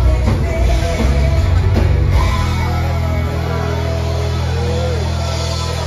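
A Swedish dansband playing live through the PA, heard amplified in the room. About two seconds in the beat stops and a held chord rings on.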